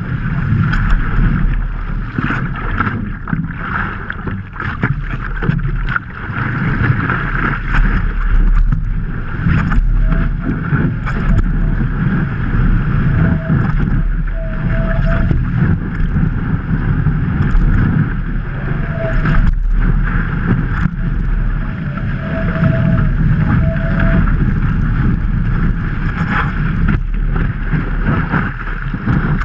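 Wind buffeting a microphone fixed on the nose of a stand-up paddleboard, with whitewater rushing and splashing along the board as it rides a breaking wave.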